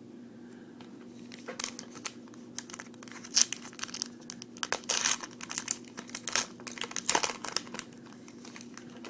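Foil trading-card pack being torn open, its wrapper crinkling in irregular crackles for several seconds.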